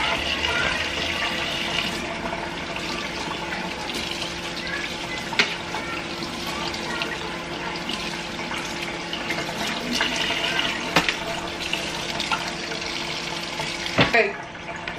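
Cold water running from a kitchen faucet into a stainless steel sink and splashing over chunks of raw beef being rinsed by hand, with a few knocks. The water shuts off near the end.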